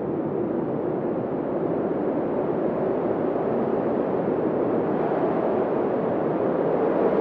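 Steady, muffled rushing noise of a relaxation sleep-noise track, even and without any distinct events, slowly swelling a little louder.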